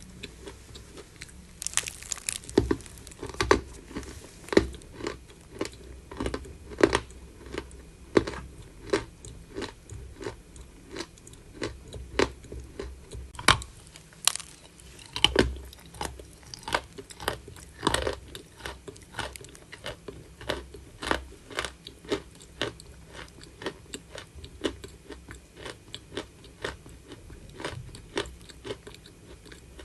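Close-up crunching of chalk being bitten and chewed, a steady run of sharp crunches about one to two a second, some much louder than the rest.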